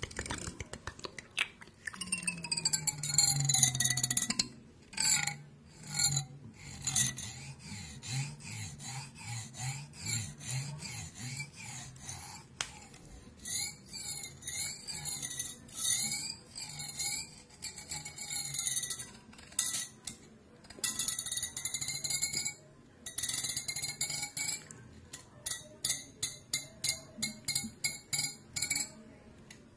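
ASMR trigger sounds made close to the microphone: squeaky, wavering pitched tones that slide up and down, broken by small clicks, then a run of quick taps, about three a second, near the end.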